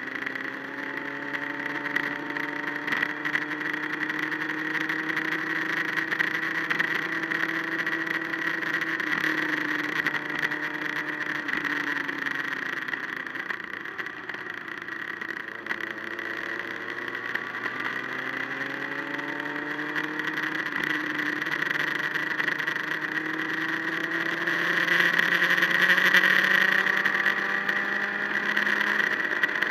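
Motorcycle engine running under way, its pitch climbing slowly as it pulls, dropping about halfway through as it slows, then climbing again; steady wind and road hiss underneath, loudest near the end.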